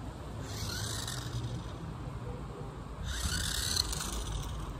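Two short whirring runs from a toy remote-control car's electric drive, one about half a second in and one about three seconds in, each rising and falling in pitch, over a steady low hum.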